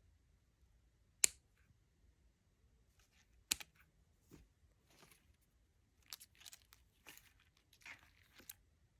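Two sharp clicks, then a few seconds of rustling and crinkling from something being handled, loudest near the end.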